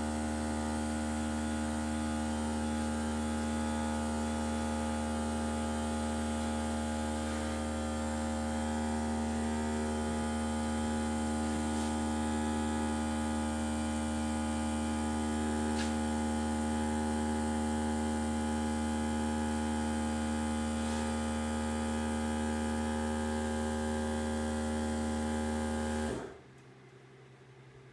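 Electric air compressor running steadily with an even hum as it refills its tank, catching up on pressure after brad nailing, then shutting off abruptly near the end once the tank is full.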